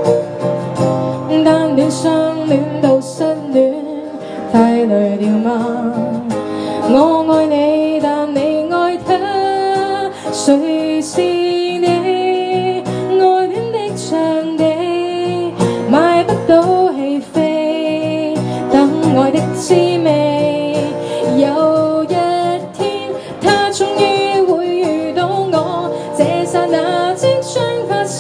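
A woman singing a pop ballad live, accompanying herself on an acoustic guitar.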